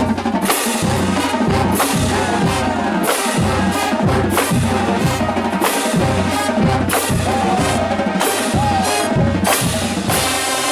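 Marching band music driven by its drumline, bass drums and snares keeping a steady beat under the band.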